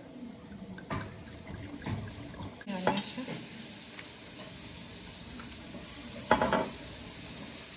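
Glass bottles and wine glasses handled on a granite countertop: a few knocks and clinks, the loudest about three seconds in and again past six seconds, over a steady hiss that comes in near the three-second mark.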